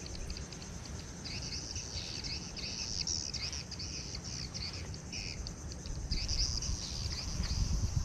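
Birds chirping in a quick series of short, rising-and-falling calls over a low, steady rumble.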